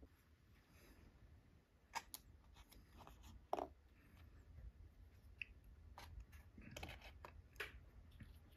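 Faint handling sounds: a few soft clicks and taps as a small plastic sauce container with a yellow cap is picked out of a wooden sushi box and handled, the sharpest about three and a half seconds in.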